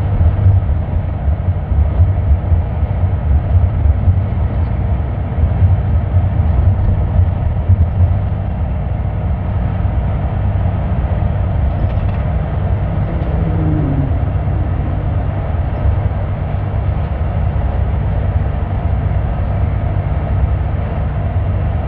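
Steady low road rumble heard from inside a moving vehicle at highway speed: engine and tyre noise, a little louder in the first eight seconds.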